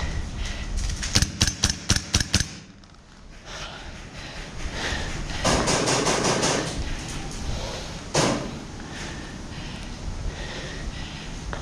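GHK MK18 gas blowback airsoft rifle firing a quick string of about eight shots, a second or so in. A rustle and a single knock follow later.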